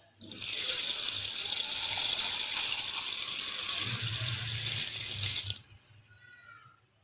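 Granulated sugar poured in a steady stream into water in a steel pot: an even high hiss lasting about five seconds, then stopping.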